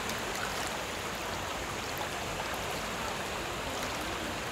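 Shallow stream running steadily over stones, an even rushing of water.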